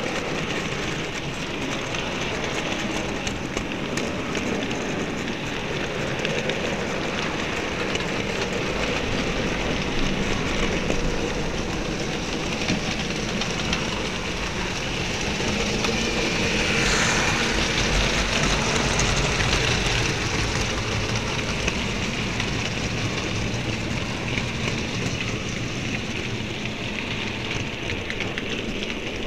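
Model train running, picked up by a small camera riding on one of its wagons: a steady rattling hiss with many small clicks from the wheels on the track. It grows a little louder for a few seconds a little past halfway.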